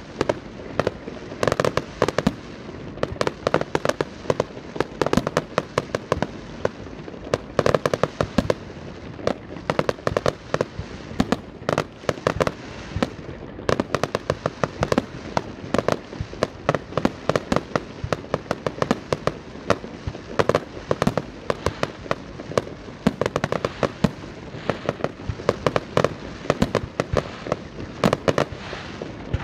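Fireworks display: aerial shells bursting overhead in a continuous barrage, with many sharp bangs and crackles in quick succession and no letup.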